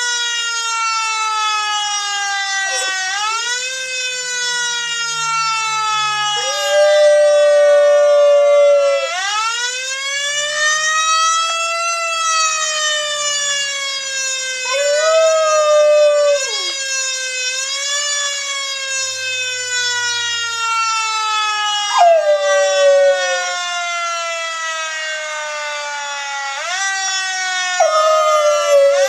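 Emergency vehicle siren wailing in repeated rising-and-falling sweeps, with a Chihuahua howling along. The dog howls four times, each a held note of one to two seconds, and these howls are the loudest sounds.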